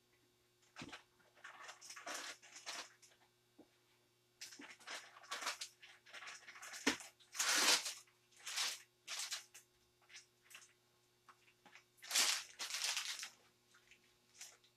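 Disposable plastic piping bag crinkling and rustling in irregular bursts as it is filled with icing by hand.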